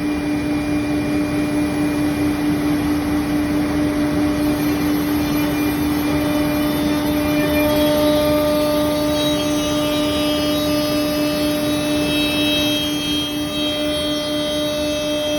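CNC router running: a steady, even-pitched spindle hum over a constant noise, with several higher whining tones coming in about halfway and shifting as the machine works.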